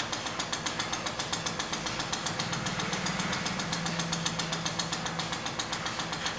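A running machine in the background making a rapid, even knocking beat, with a faint low hum midway.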